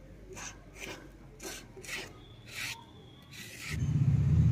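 Wet soaked rice being ground on a stone slab with a hand-held grinding stone: the stone rasps across the slab in repeated strokes, a little under two a second. Near the end a loud low rumble takes over.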